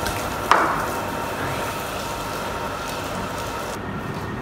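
Water spraying from a hose onto wet blankets, a steady hiss, with one sharp knock about half a second in; the hiss thins out near the end.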